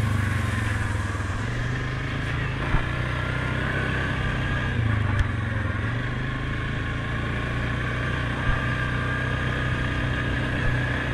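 Suzuki KingQuad 750 ATV's single-cylinder four-stroke engine running at a steady cruise, with a steady high whine over it and a few brief knocks.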